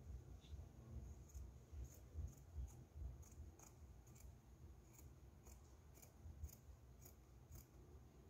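Scissors snipping down the middle of a black t-shirt, a faint, even run of short snips about two a second.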